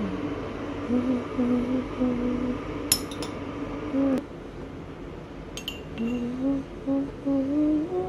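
A metal teaspoon clinks sharply against a glass jar a few times while scooping powder out. Over it, a voice hums a tune in short held notes.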